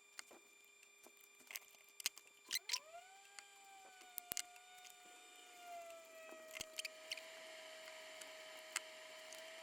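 Light clicks and taps of small tools on a workbench, then about two and a half seconds in a small fan motor starts, its whine rising quickly and then holding steady as a hiss of moving air builds.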